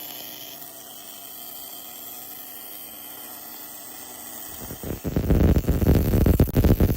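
Steady hiss and hum of an automatic MIG surfacing-welding build-up running inside a worn bore. About five seconds in, loud electronic music with a heavy, fast beat cuts in and drowns it out.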